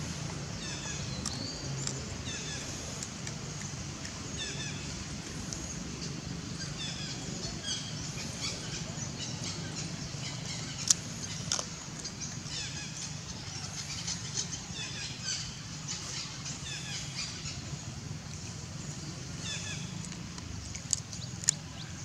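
Birds calling with repeated short, falling chirps over a steady low hum. A few sharp clicks come about halfway through and again near the end.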